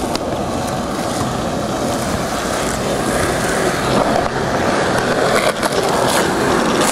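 Skateboard wheels rolling steadily over a hard court surface, a continuous rough rumble, with a couple of short clicks near the end.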